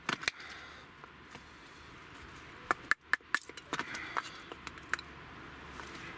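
Short, sharp wooden knocks as kindling is split with a full-tang Morakniv Garberg knife on a wooden chopping round: two at the start, then a quick cluster of about eight a little past halfway, and a few more near the end.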